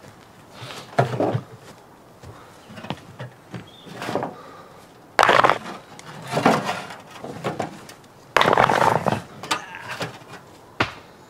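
Stones scraping and clattering against a metal wheelbarrow as they are handled, in several short bursts, the loudest about five seconds in and again near eight and a half seconds.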